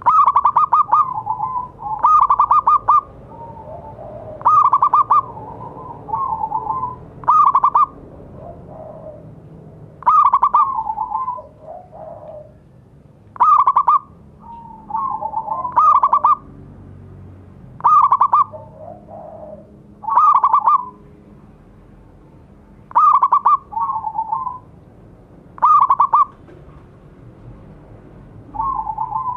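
Zebra dove (perkutut) cooing: a loud, rapid trilled coo repeated about every two and a half seconds, with fainter, lower calls in between.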